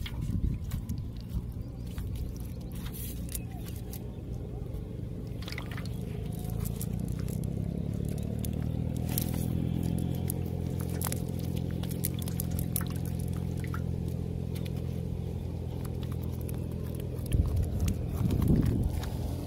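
A steady low engine hum, its pitch rising a little a few seconds in, with crackling and wet squishing as a fishing net is pulled through by hand on mud. Handling noise grows louder near the end.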